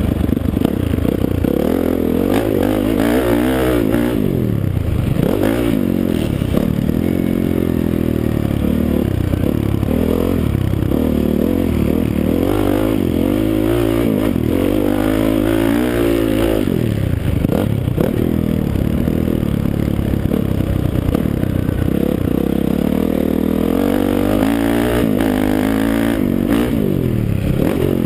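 Honda CRF450 dirt bike's single-cylinder four-stroke engine at full riding load, revving up and falling back over and over as the throttle is worked around a motocross track, heard close from the rider's helmet.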